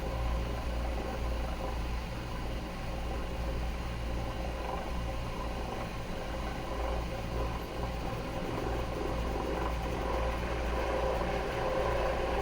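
Dry bilge pump running steadily with a low hum while its sponge pickup sucks water up out of the bilge.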